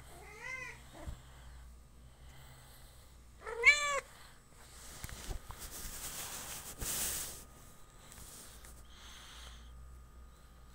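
Siamese-type kitten meowing twice, short calls that rise and fall in pitch, the second one louder, while it play-bites a person's hand. Rustling follows as it wrestles.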